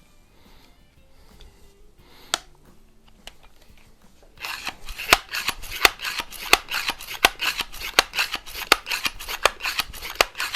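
Excellent C1 multi-pump air rifle being pumped up for the next shot: after a single click, a fast, even series of pump strokes starts about four seconds in, each with a sharp click and a scratchy rasp, about two to three strokes a second.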